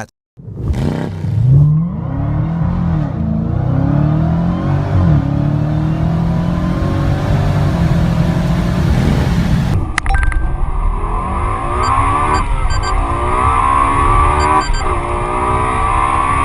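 A car engine revs and pulls hard for about the first ten seconds. After a cut, a Lexus LFA's V10 accelerates flat out under launch control, its pitch climbing steeply and dropping back at each upshift, twice.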